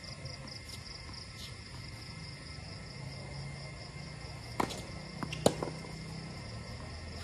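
Tennis rally: a sharp knock about four and a half seconds in, then a louder pop a second later as a racket strikes the tennis ball. Steady high insect chirring runs underneath.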